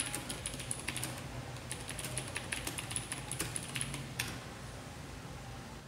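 Fast typing on an IKBC Table E401 mechanical keyboard with Brown tactile switches, a rapid run of key clicks and bottoming-out taps that stops about four seconds in.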